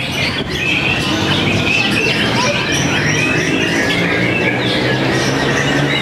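Many caged white-rumped shamas (murai batu) singing at once, a dense tangle of overlapping quick whistles and chirps over a steady low drone.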